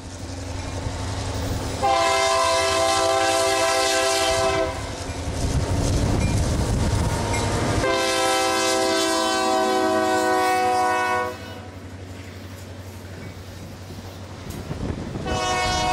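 Iowa Interstate GP38-2 diesel locomotive's horn sounding two long blasts about three seconds each, with a third starting near the end, a grade-crossing warning, over the low rumble of passenger cars rolling past on the rails.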